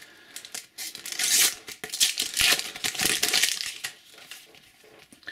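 Panini FIFA 365 sticker packet being torn open and crinkled, with the stickers rustled out in hand: a run of rips and crinkles over about three seconds that dies away near the end.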